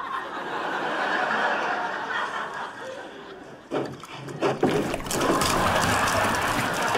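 Studio audience laughing, with a couple of knocks from a plastic water-cooler bottle being handled about four seconds in, and water splashing from the tipped bottle onto the cooler near the end.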